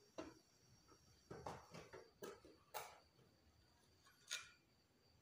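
Near silence broken by about half a dozen faint crackles and pops from a small pool of oil heating in a steel kadai, scattered through the few seconds, the last about four seconds in.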